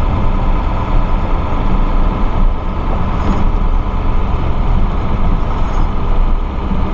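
Old Ford F-250 diesel pickup driving, a steady engine and road rumble.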